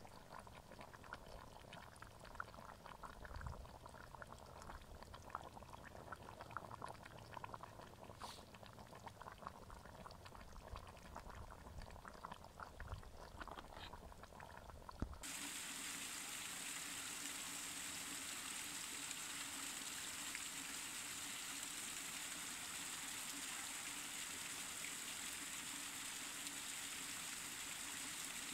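A pot of abgoosht (lamb and vegetable broth) bubbling at a boil over an open fire. About halfway through it changes suddenly to the steady rush of a small waterfall splashing over mossy rocks.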